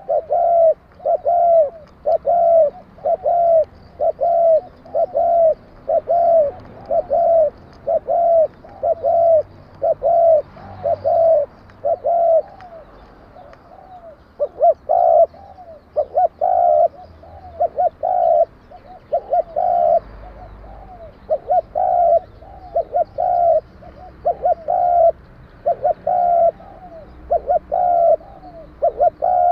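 Spotted dove cooing over and over, a run of short low coos in small groups at about two a second, with a short pause about halfway through. The bird has the bright, metallic 'đồng kim' voice prized by Vietnamese dove keepers.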